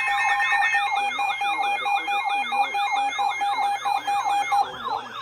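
Electronic siren-like alert tones layered together: a steady tone, a rapid repeating falling sweep about three times a second, and a high warbling tone. The steady tone cuts off near the end while the sweeps carry on.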